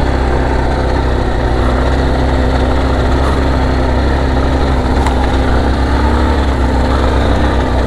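Adventure motorcycle engine running steadily under way.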